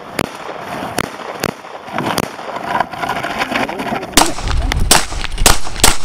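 Pistol shots on an outdoor range: single shots about half a second to a second apart. About four seconds in, a low rumble comes in and a louder, quicker string of shots follows.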